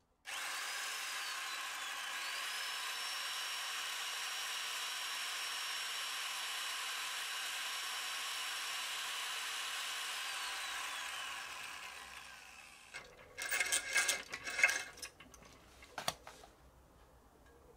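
Cordless drill speeding up and running steadily as it drills off corroded screws in an alloy engine block, then winding down about eleven seconds in. A cluster of irregular metallic knocks and clinks follows.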